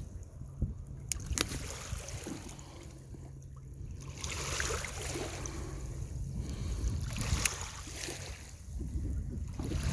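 Wind buffeting the microphone over waves lapping at a lakeshore, the wash of water swelling and easing every few seconds, with a few sharp clicks.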